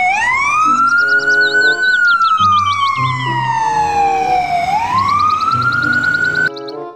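Ambulance siren wailing: one tone rises over about two seconds, falls slowly for nearly three, then starts rising again, with a faster warbling tone above it. It cuts off suddenly near the end.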